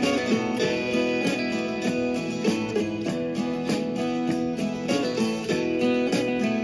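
Instrumental break of a country song, led by guitar, with no singing.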